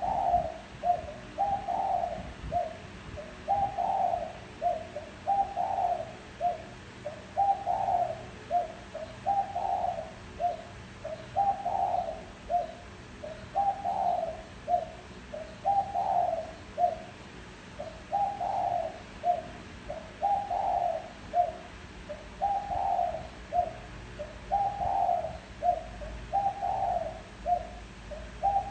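Spotted dove cooing, repeating its phrase about every two seconds. Each phrase is a longer coo followed by a few short notes.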